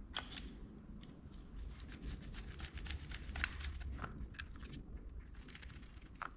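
A screwdriver turning the small screws of the accelerator pump diaphragm cover on a Solex Kadron carburetor: a quick, irregular run of light metal clicks and scrapes, with one sharper click just after the start.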